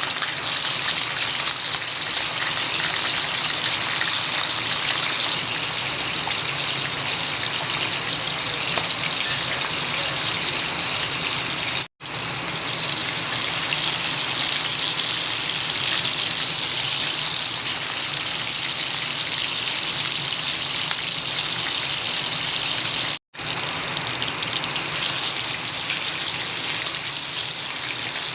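Smoked milkfish sizzling steadily in hot oil as it fries, a dense even hiss. It cuts out for a split second twice, once near the middle and once about three quarters through.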